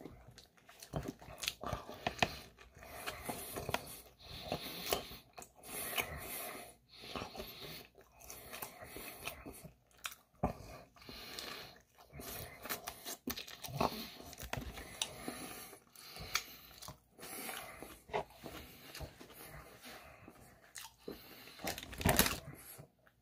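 Close-miked biting and chewing of a burger: irregular soft crunches and wet mouth sounds. Near the end comes a louder rustle of the paper wrapper being handled.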